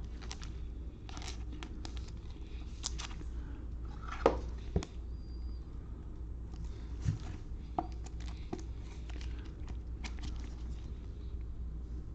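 Trading cards and packs being handled: scattered soft clicks and rustles, with a sharper knock about four seconds in, over a steady low hum.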